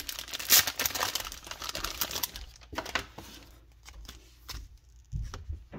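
Plastic packaging crinkling and tearing as a boxed mini card portfolio is unwrapped by hand: dense crackly rustling, loudest about half a second in, thinning out later, with a few dull knocks of handling near the end.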